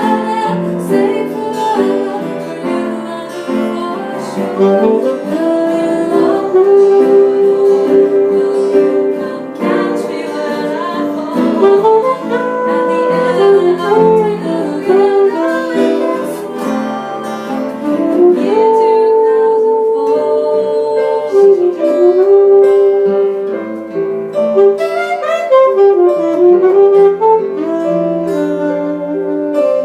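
Jazz band music with a saxophone playing a flowing melody over guitar accompaniment.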